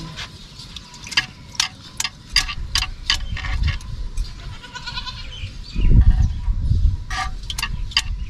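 Goats moving along, with two runs of sharp clicks, about two to three a second, and spells of low rumbling.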